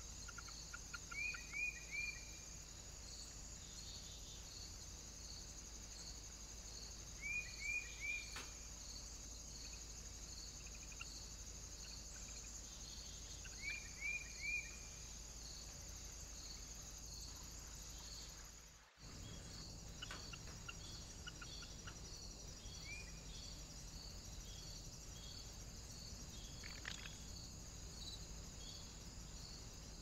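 Steady high insect chorus of crickets, with an even, regular pulse of chirps. Three times in the first half a small bird gives a short run of three or four quick high notes, the loudest sound here. The sound drops out for a moment about two-thirds through.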